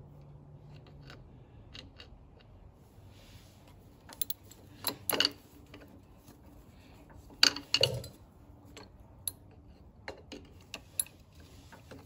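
Scattered metallic clicks and clanks of a screwdriver and ratchet wrench knocking against a Honda CT70's flywheel and the flywheel puller, as the flywheel is held and the puller worked. A few louder clanks come about five seconds in and again just before eight seconds.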